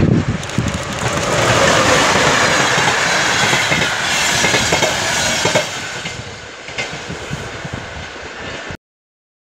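An EP07 electric locomotive and a train of passenger coaches pass close by at speed. The wheels clatter over the rail joints, and the rushing noise is loudest for a few seconds as the coaches go past, then fades as the end of the train draws away. The sound cuts off suddenly near the end.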